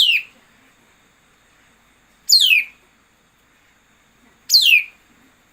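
A songbird calling three times, about two seconds apart. Each call is a quick, high whistle that slides steeply downward, as in a decoy call recording played to lure birds to a trap.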